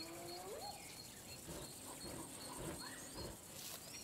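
A lion cub feeding on a zebra carcass gives a short rising whine in the first second, followed by soft scattered sounds of chewing and tearing at the meat.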